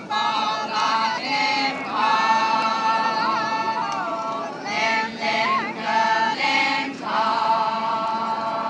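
A large group singing a Khiamniungan Naga folk song in unison, in long held phrases broken by short pauses for breath.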